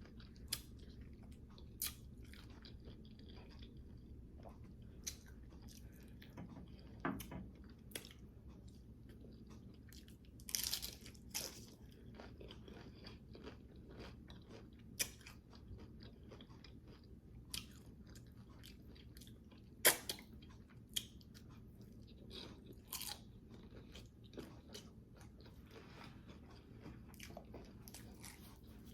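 A person biting into and chewing tacos in crunchy low-carb hard taco shells, with irregular sharp crunches; the loudest come about ten to eleven seconds in and again about twenty seconds in.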